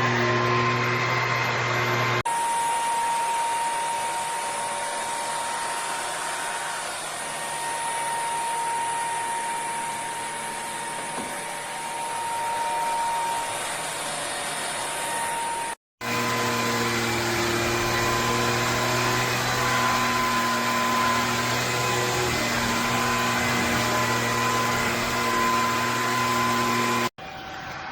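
Bissell PowerClean FurGuard cordless stick vacuum running steadily, a motor hum under a high whine. It breaks off briefly about 16 seconds in, and the tone changes suddenly near the start and near the end.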